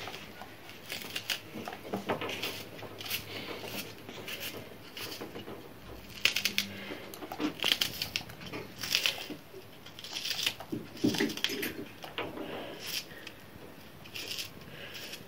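Knife cutting a red onion held in the hand, an irregular run of crisp slicing clicks, with the cut pieces dropping into a saucepan of oil and rendered fat.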